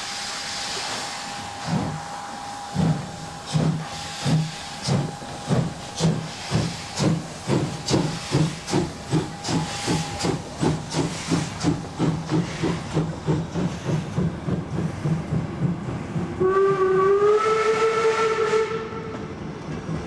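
A DB class 64 two-cylinder steam tank locomotive pulling away from a stand. Steam hisses at first, then the exhaust beats start about two seconds in and quicken steadily from about one a second to several a second as it gathers speed. Near the end its steam whistle sounds once for about three seconds, rising slightly in pitch at the start.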